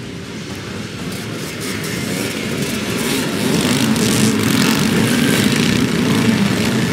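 A pack of vintage motocross motorcycles accelerating hard off the start, many engines at high revs together. The sound builds over the first few seconds and is loudest as the bikes pass close by.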